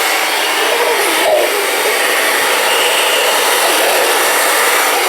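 Handheld hair dryer running steadily, giving a continuous even rushing hiss of blown air.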